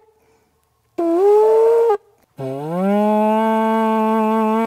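Lip-buzzed birch bark trumpet blown in two notes: a short higher note about a second in, then a longer lower note that slides up in pitch, is held, and cuts off. The trumpet is newly made and not yet glued, and its maker says it doesn't really give too good sound yet.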